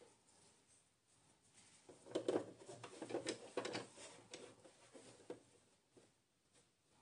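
Faint, irregular rustling and handling noises as a slippery synthetic blouse fabric is gathered and slid under a sewing machine's presser foot. They start about two seconds in and die away past the middle.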